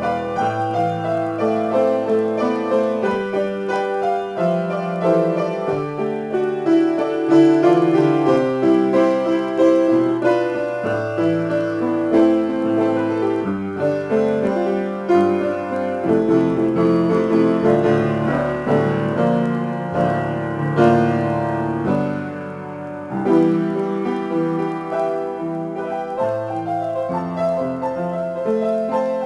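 Upright piano played by hand: an improvisation in A minor, notes and chords sounding continuously, with a brief softer moment about three quarters of the way through.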